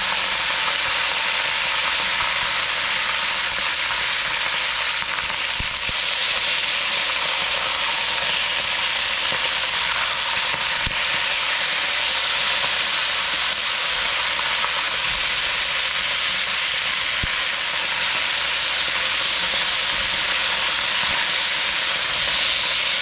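Rabbit pieces searing in hot oil in a Dutch oven on high heat: a steady, loud sizzle.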